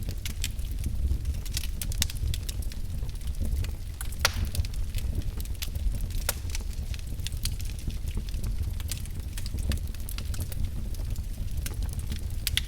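Wood fire burning in a fireplace, crackling with irregular sharp pops over a steady low rumble.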